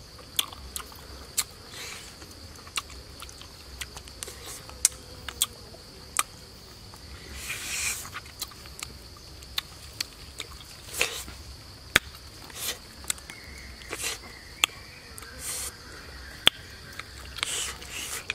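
A man biting and chewing grilled crocodile meat close to the microphone, with many sharp wet smacking clicks and a few louder, longer bites. A steady high insect buzz runs underneath.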